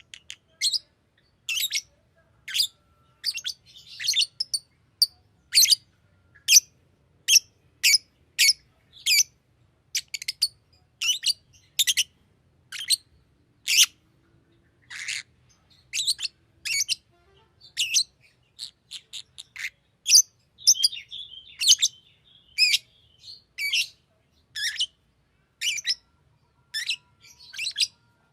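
Green Fischer's lovebird giving a long series of short, sharp, high-pitched chirps, about one or two a second, with a brief burst of lower chattering about three-quarters of the way through.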